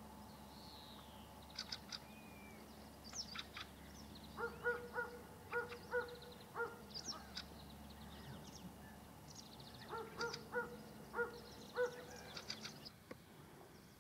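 Wild birds calling faintly: two bouts of short, repeated honking calls, about four and ten seconds in, with scattered higher chirps from smaller birds in between.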